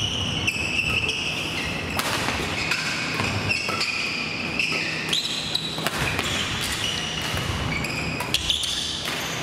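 Badminton doubles rally: court shoes squeak on the gym floor again and again, with a few sharp cracks of rackets striking the shuttlecock.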